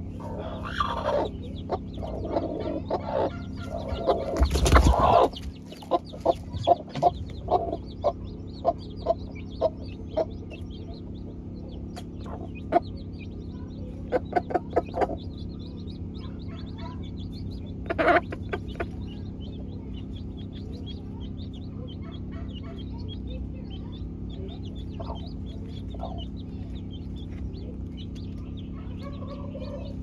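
Broody hens clucking in short runs, with a louder burst about five seconds in, over a constant scatter of faint, high chick peeps.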